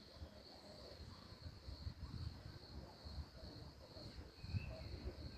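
Faint open-air ambience: crickets trilling steadily and high-pitched over a low irregular rumble, with a few faint short chirps.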